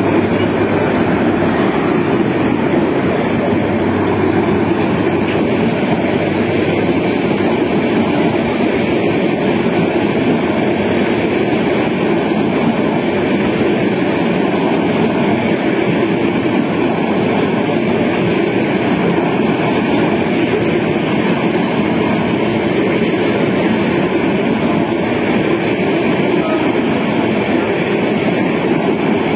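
Bangladesh Railway Subarna Express passenger coaches running through the station at speed without stopping: a loud, steady rumble and rattle of wheels on the rails.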